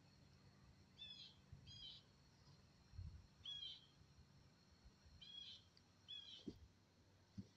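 A bird calling faintly: five short chirps, mostly in pairs, spaced a second or two apart.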